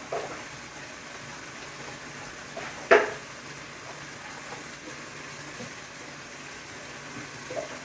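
Dog licking and chewing at a plastic peanut butter bottle, wet smacking over a steady hiss, with one sharp knock about three seconds in and smaller ones near the start and near the end.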